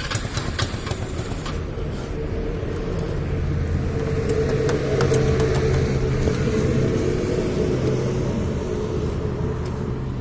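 Motorcycle engine running at a steady pitch while riding, with rushing noise underneath. A few sharp clicks in the first second or two, and the sound swells a little around the middle.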